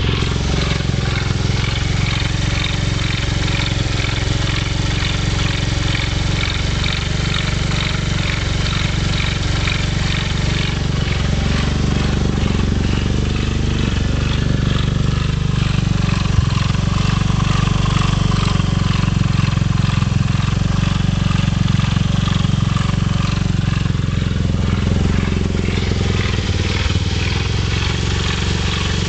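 GY6 50cc single-cylinder four-stroke scooter engine running steadily, making sounds its owner calls weird and bad. The engine note deepens and grows heavier about a third of the way in and settles back near the end.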